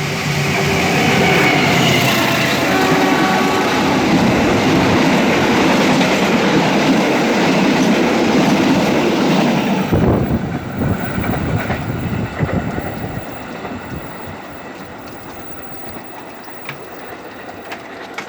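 Malabar passenger train running on the rails. A loud rushing and rattling lasts about ten seconds and drops off sharply, leaving quieter wheel clatter with scattered clicks.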